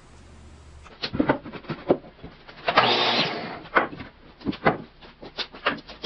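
Wooden 2x4 boards being handled on a plywood bench, starting about a second in: a run of sharp wooden knocks and clunks, with a longer scrape of wood sliding across wood about three seconds in.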